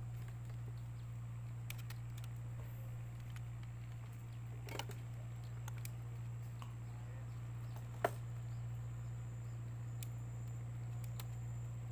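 Quiet riverside boat ambience: a steady low hum and a faint, thin, steady high tone. Over it come a few small clicks and knocks from rods and line being handled against the boat, with one sharper knock about eight seconds in.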